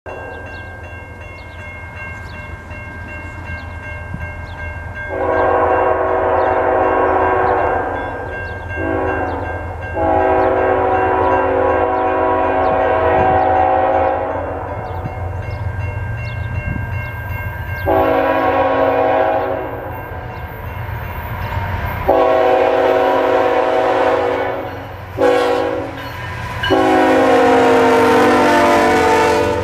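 Air horn of a Canadian National freight train's lead diesel locomotive blowing a series of blasts: a long, a short and a long, then the long-long-short-long grade crossing signal, each blast a chord of several notes. Under it the low rumble of the approaching GE diesel locomotives grows, and the last long blast is loudest as they pass close by.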